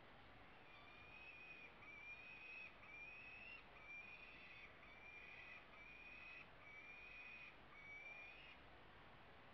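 Peregrine falcon chicks' food-begging calls: eight drawn-out, slightly rising whining calls, about one a second, during feeding.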